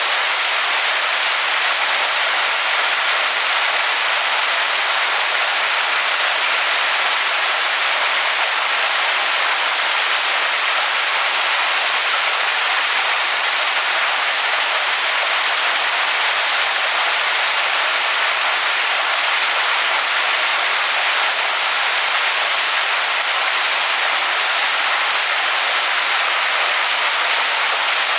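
Waterfall pouring onto rocks: a steady, loud, unbroken rush of water, with most of its weight in the hiss rather than the low rumble.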